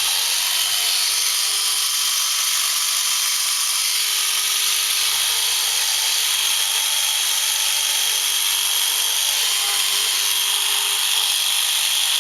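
RIDGID R3100 compact orbital jigsaw running free with no workpiece, its motor whine reaching full speed about a second in at the end of its soft start, then running steadily.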